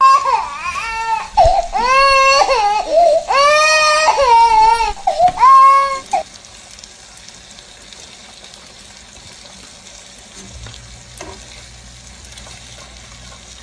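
A child crying loudly in long wavering wails for about six seconds. The crying then stops and a quieter steady hiss carries on.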